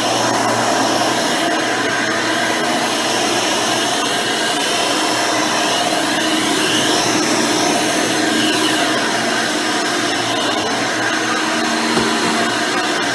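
Hoover Elite 600 upright vacuum cleaner, fitted with a 7-amp motor and 20-blade fan, running steadily while vacuuming.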